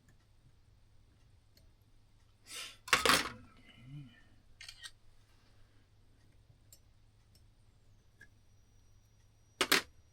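Small metal clock-movement parts being handled and set down on the bench: a short cluster of clinks and rattles with a brief ring about three seconds in, a lighter click near five seconds, and one sharp clink near the end.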